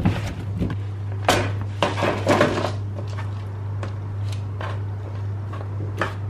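Oiled chicken pieces and potato wedges handled by hand and laid onto a parchment-lined baking tray: soft rustles and squishes, with a few sharper knocks about one to two and a half seconds in. A steady low hum lies under it all.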